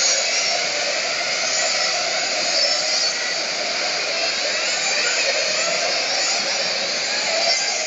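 Several radio-controlled on-road cars racing on an indoor track: a continuous high whine of their motors and drivetrains, overlapping pitches sliding up and down as they accelerate and brake.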